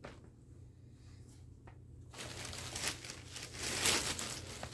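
Packaging crinkling and rustling as the next skein of yarn is handled out of the box. It starts about two seconds in and is loudest near the end, with a faint click or two before it.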